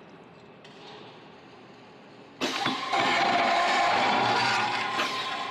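Metal circular cold saw with coolant flowing over the blade: it runs quietly at first, then about two and a half seconds in the blade bites into the steel tube and a loud, steady cutting sound with a ringing tone sets in.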